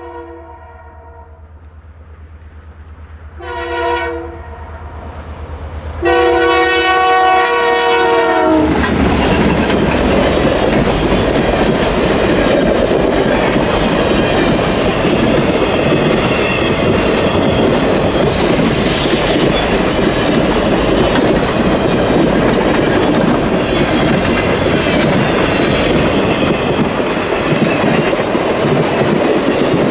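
CP Rail diesel locomotive horn sounding the end of a grade-crossing signal: a short blast, then a long blast that drops in pitch as the locomotive passes. The train then goes by close up, a loud steady rush of engine and wheel noise with clickety-clack over the rail joints.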